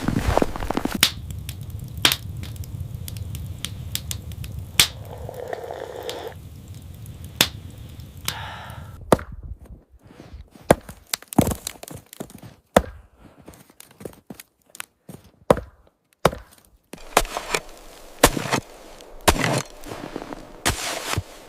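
Irregular sharp knocks and cracks, spaced unevenly, like wood being struck or chopped, over a low rumble that stops about halfway through.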